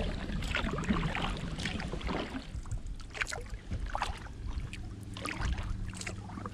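Kayak paddle strokes: the blades dip and splash about once a second, water dripping and lapping at the hull, over a low wind rumble on the microphone.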